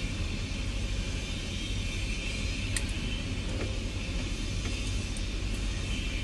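A steady low rumble with a hiss above it that sets in at the start, and a faint tick or two about halfway through.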